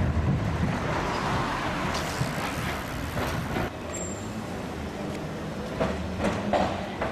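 Street traffic and the rumble of trams: a modern low-floor tram passing, then, after a cut, an old W-class tram approaching on its rails, with a few sharp clicks near the end.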